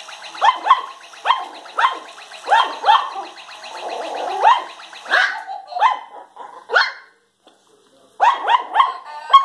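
Yorkshire terrier puppies yapping, with many short high-pitched barks about one to two a second. A pause of about a second comes near the end, then a quick run of four or five barks. Under the first part runs a steady whirring from the toy mouse's small motor, which stops about seven seconds in.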